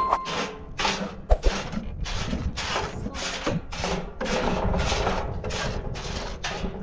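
Wood being cut with a hand saw in steady back-and-forth strokes, about two a second.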